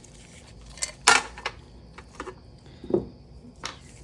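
About six sharp metallic clinks and scrapes, the loudest a little over a second in, as a screwdriver and the aluminium fuel pump housing are worked over a metal drain pan while the housing's drain screw is removed.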